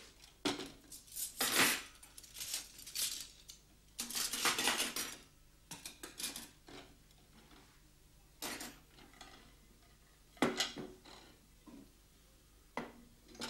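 China plates and cutlery clinking as a table is set by hand: plates set down off a stack and knives and forks laid out, in scattered clinks with a busier clatter about four seconds in.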